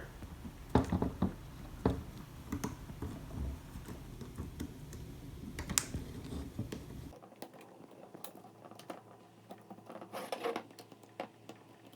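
Light scattered clicks, taps and rubbing of a locking ring being fitted back onto an SCM/Morbidelli CNC router vacuum pod over its new rubber gasket.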